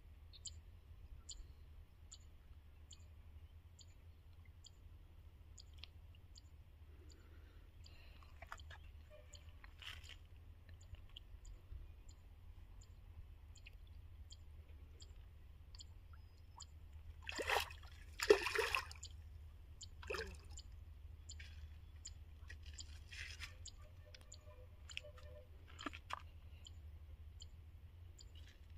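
Hooked rohu fish splashing and thrashing at the water surface as it is played on a line, a few small splashes and one louder double splash a little past halfway, over a faint steady low hum and regular faint ticks.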